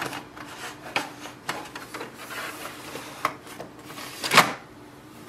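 Plastic paper tray of an HP Envy 6155e printer being handled: light clicks and rubbing as the paper-width guide is slid against a stack of paper, then a louder clunk about four seconds in as the tray is pushed home.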